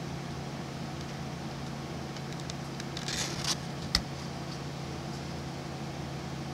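Steady low background hum, with a brief rustle about three seconds in and a single sharp click just before four seconds.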